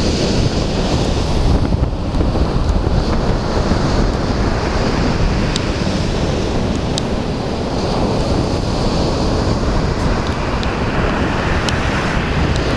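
Strong wind buffeting the microphone over the steady rush of waves breaking on the shore, with a few faint clicks.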